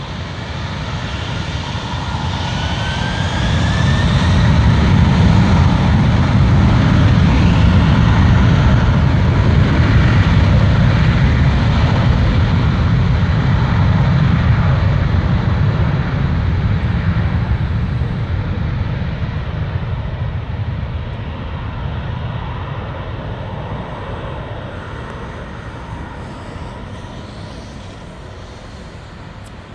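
Jet airliner engines: a deep rumble with a rising whine a few seconds in, building to a loud peak, holding, then fading away over the last dozen seconds as the aircraft moves off.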